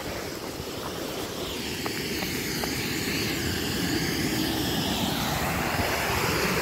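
Water pouring over a small stepped concrete weir, a steady rush of falling water that grows gradually louder as it is approached. A few faint ticks sound in the first half.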